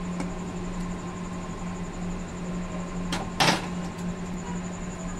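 Two sharp knocks about three seconds in, the second louder, as the kadai is knocked against the stainless-steel mesh strainer while candied watermelon rind is tipped out to drain, over a steady low hum.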